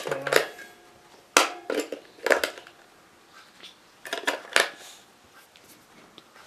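Hands handling small plastic parts and packaging: sharp clicks and crackles in four short clusters, with quiet gaps between them.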